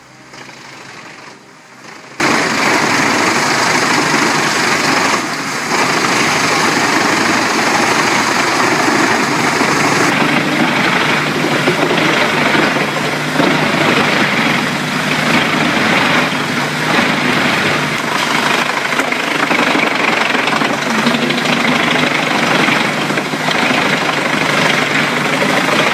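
Truck-mounted wood chipper running under load, feeding and chipping logs: a dense, loud, steady mechanical noise that starts abruptly about two seconds in.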